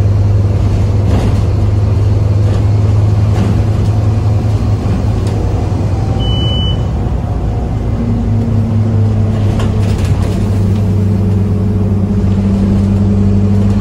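Scania OmniCity double-decker bus heard from inside the saloon while under way, its five-cylinder diesel giving a steady low drone, with light interior rattles. A second, higher hum comes in about eight seconds in, and a short high beep sounds about six seconds in.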